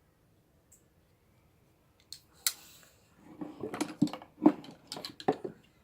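Metal folding knives being handled and put down: after a couple of seconds of near silence, two sharp clicks, then a run of clicks and knocks.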